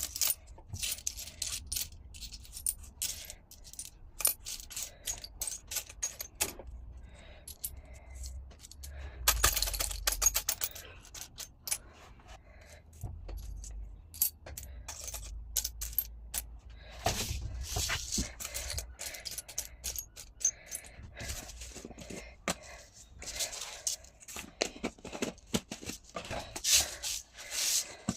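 Small pieces of scrap clear glass clinking and scraping against each other as they are handled, with many quick irregular clicks and a few louder flurries of clatter.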